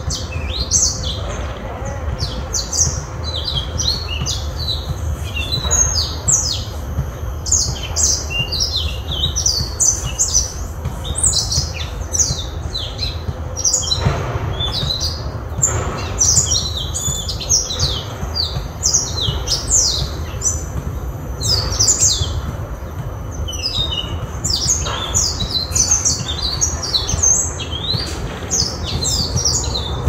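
A small caged songbird singing a long, fast run of high chirps and trills, with only brief pauses.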